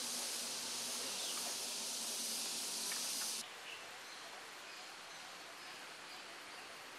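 Outdoor ambience: a steady high hiss that drops away abruptly about three and a half seconds in, leaving a quieter background with a few faint bird chirps.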